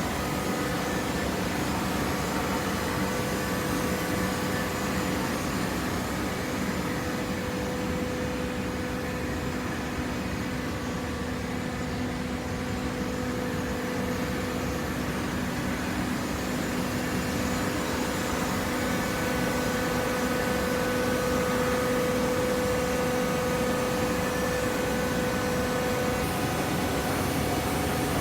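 Horizontal cardboard baler's hydraulic power unit running, a steady machine hum with a constant tone, growing a little louder about two-thirds of the way through.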